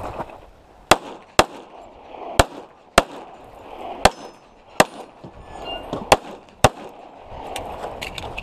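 A .45 ACP 1911 pistol, a Les Baer Extreme Tactical, fired eight times in four quick pairs, the two shots of each pair about half a second apart. A few fainter sharp cracks fall between the pairs.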